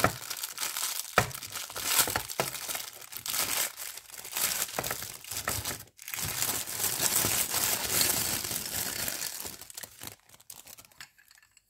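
Thin clear plastic bag crinkling as it is pulled open, emptied and crumpled in the hands, with a few sharp clicks in the first couple of seconds. The crinkling stops briefly about six seconds in and dies away near the end.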